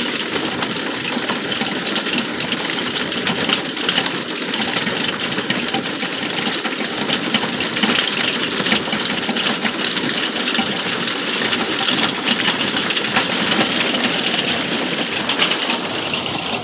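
Heavy rain and hail pelting the roof of an RV, heard from inside: a dense, steady patter of countless small impacts, coming down hard.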